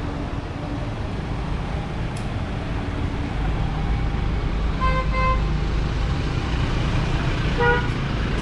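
Street traffic rumble from a vehicle passing close by. A horn gives two short beeps about five seconds in and one more near the end.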